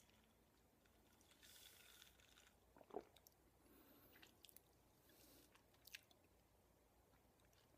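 Near silence, with faint mouth sounds of drinking from a glass and a few small clicks, the loudest about three seconds in.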